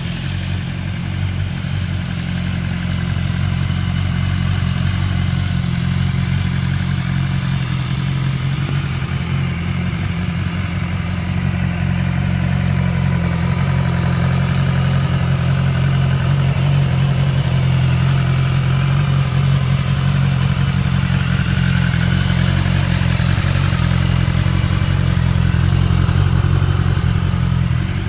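BMW S1000XR's inline-four engine idling steadily, growing slightly louder as it goes on.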